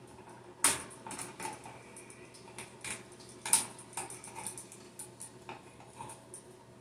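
Scattered light clicks and clinks as a GFI receptacle is handled and a copper wire is loosened and unhooked from its terminal screw. Two sharper clicks stand out, one about half a second in and one near the middle.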